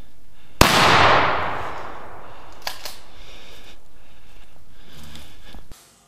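A single gunshot about half a second in, its report echoing and dying away over about a second and a half. A couple of faint sharp clicks follow about two seconds later, and the sound cuts off abruptly near the end.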